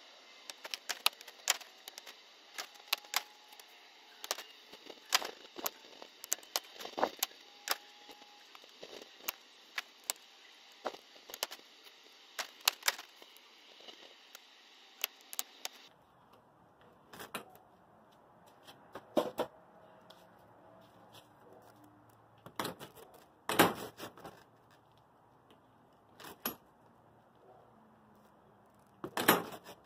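Sharp plastic and metal clicks from a combination lock box and a gate latch being handled on a vinyl fence gate. The clicks come quickly at first, then grow sparser, with two louder clacks later on.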